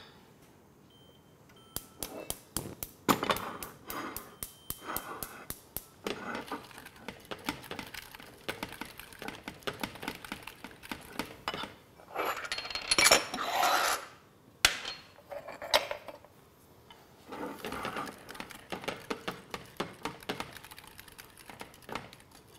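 Metal whisk stirring sauce in a glass saucepan, clicking rapidly against the glass in runs, with a louder clatter about thirteen seconds in.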